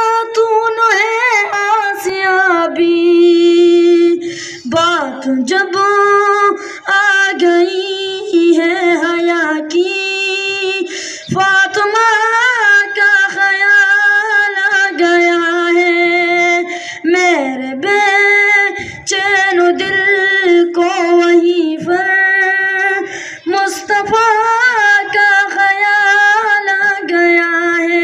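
A single high voice singing a naat unaccompanied, in long held notes with wavering ornaments and short breaths between phrases.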